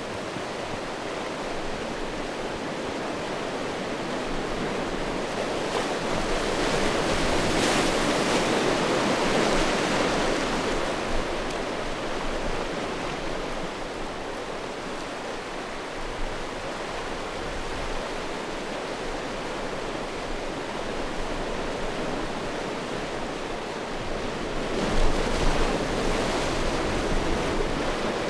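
Small sea waves breaking and washing in over a shore of rounded stones. The surf swells louder twice: once about a quarter of the way in, and again near the end.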